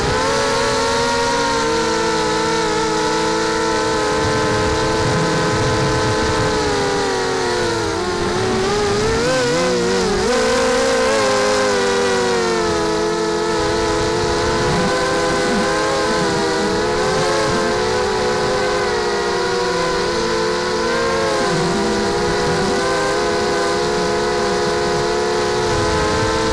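A mini H quadcopter's four Tiger 1806 2300KV brushless motors spinning Gemfan 5x3 propellers, heard through its onboard camera: a steady whine made of several close pitches that shift with throttle. About eight seconds in the pitch drops sharply, then sweeps back up a couple of seconds later.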